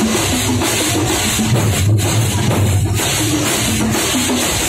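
Kerala thampola street percussion ensemble playing loud and dense: large drums beaten under a constant wash of clashing brass hand cymbals.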